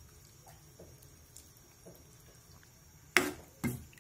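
About three seconds of near quiet, then two sharp metallic clanks with a short ring, about half a second apart: a stainless steel utensil knocking against the cooking pot.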